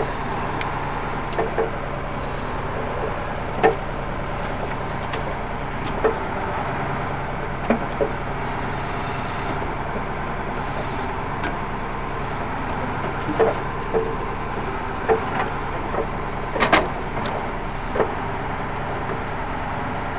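Heavy truck engine running steadily while logs are handled, with about a dozen irregular knocks and clanks, the loudest near the end.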